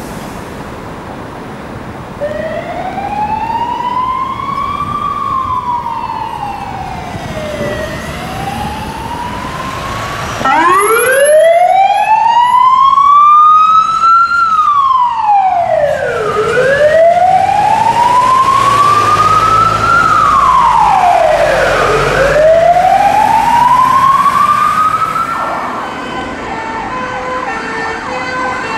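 Fire engine siren on a slow wail, each sweep rising and falling over about five or six seconds. About ten seconds in, a louder wail cuts in and runs for several sweeps. Near the end it gives way to a fainter siren with a choppier pattern of short stepped tones.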